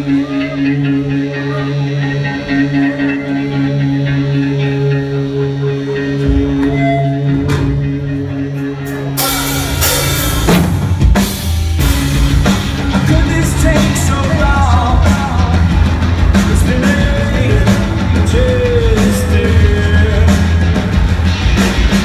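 Live rock band playing: electric guitar and bass hold steady sustained tones, then about nine seconds in the drum kit crashes in and the full band plays on loudly.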